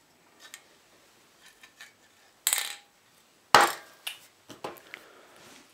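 A metal aerosol spray paint can being handled and stood down on a table: two sharp knocks about a second apart, the second the loudest, then a few lighter taps.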